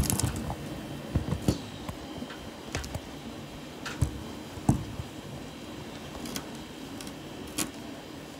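Scattered knocks and clicks, about ten over eight seconds, from a phone being handled and set in place against a grill lid, over a faint steady hum.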